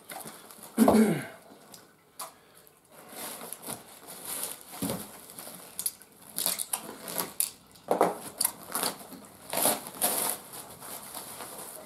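Brown kraft-paper packing being handled and pulled off cartridges over a cardboard box: irregular crinkling and rustling, louder about a second in.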